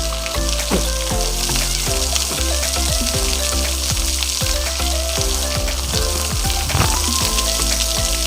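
Steady rush of falling water from a waterfall, overlaid with background music: held bass notes and a melody that moves in steps from note to note.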